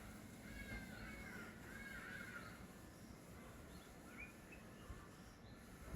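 Faint bird calls: a quick run of repeated arching notes for the first two and a half seconds, then a few short chirps about four seconds in.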